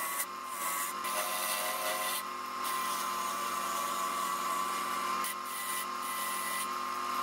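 Wood lathe running with a steady motor whine while a hand-held turning tool cuts a spinning mesquite vase blank, a hissing scrape of shavings that stops briefly a few times as the tool is eased off and put back to the wood.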